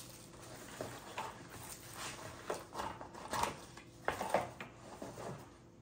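Handling noise of unboxed items and packaging: irregular rustles, light knocks and clicks, with a few louder ones in the middle stretch.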